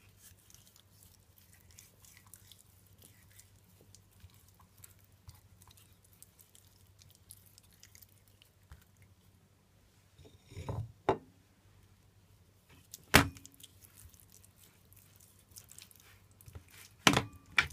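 Hands handling raw mackerel pieces, rubbing dry seasoning into them in a plastic dish: soft, faint wet crackling and rustling. A few sharp knocks break in, the loudest about thirteen seconds in and a short cluster near the end.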